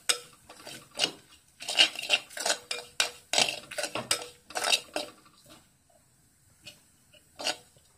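A metal spoon scraping and clinking against the inside of an unglazed clay pot, stirring spice powders as they roast in oil. A quick run of strokes thins out after about five seconds to two single taps.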